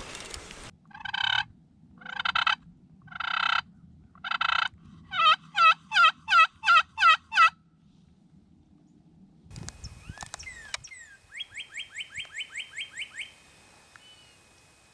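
Turkey calls: four drawn-out yelp-like notes about a second apart, then a quicker run of about seven notes. After a short rustle and clicks, a fast run of about a dozen short rising notes follows near the end.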